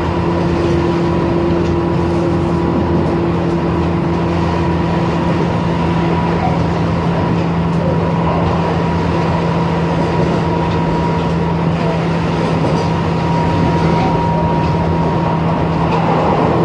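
Tobu 10030 series electric train heard from inside the passenger car, running at a steady speed. A steady, unchanging motor and gear hum sits over the even rolling noise of the wheels on the rails.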